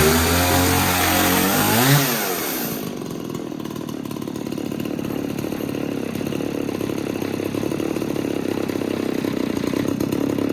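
Stihl 024 Wood Boss two-stroke chainsaw running on a freshly replaced piston and cylinder, just started on half choke. It revs high, peaks about two seconds in, then drops to a steady idle.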